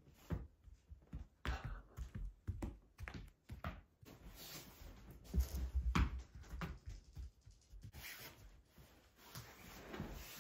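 Scattered light knocks, taps and soft rustles in a small room, irregular and uneven in strength, with a few louder thumps about six seconds in.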